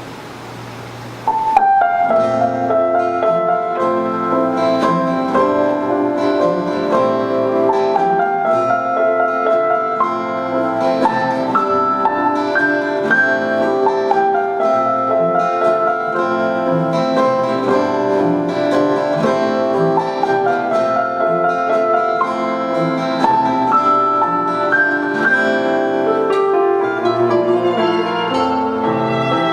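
Instrumental ensemble music with piano and plucked guitar, many notes overlapping; it starts suddenly about a second in, after a moment of steady hiss.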